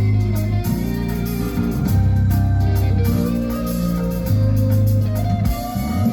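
Live band playing an instrumental passage: a steady bass line under guitar and organ-like keyboard chords.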